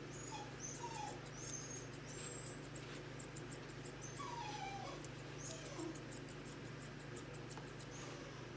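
English Cocker Spaniel puppy whimpering in short, falling whines over quick snips of thinning shears cutting through its coat. A steady low hum runs underneath.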